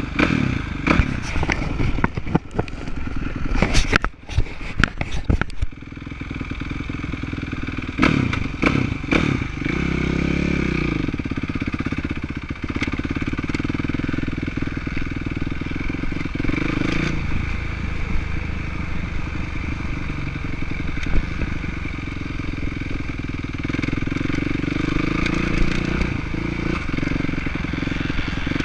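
Kawasaki motocross bike engine running and revving up and down, heard from a camera mounted on the rider's chest. The first few seconds hold a run of sharp knocks and clatter.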